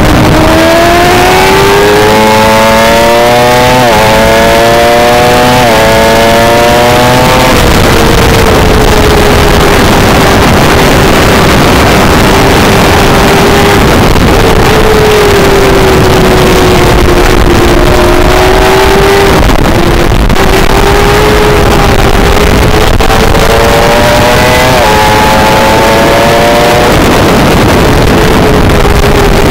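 600 cc race sport bike's engine pulling hard through the gears, its pitch climbing and dropping back with three quick upshifts in the first eight seconds. It then runs at fairly steady high revs before two more upshifts in the last third, with heavy wind rush on the onboard microphone.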